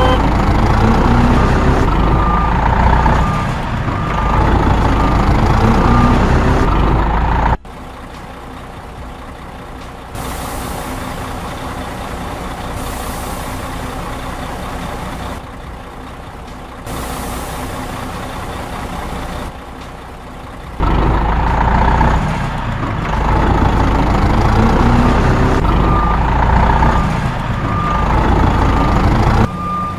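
Heavy truck engine running, with a reversing alarm beeping over and over. After a cut the engine is quieter and three long hisses come and go, like air being let off. Then the loud engine and the reversing beeps return.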